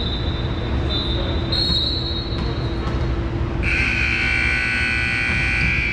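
Referee's whistle blown in one long shrill blast, starting about three and a half seconds in, the signal to serve.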